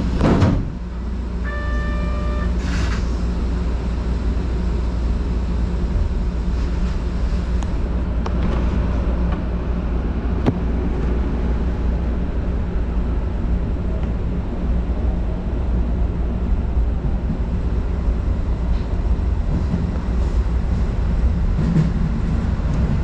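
Keio Sagamihara Line electric commuter train running, a steady rumble and low hum heard from inside the car. A brief loud noise comes right at the start, and a short run of electronic chime tones sounds about two seconds in.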